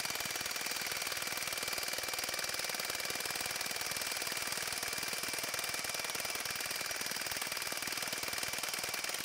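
Ingersoll Rand W9691 1-inch cordless impact wrench hammering a bolt tight in a bolt-tension tester at full power: a fast, dense, unbroken rattle of hard blows with a steady high ring over it. It stops right at the end.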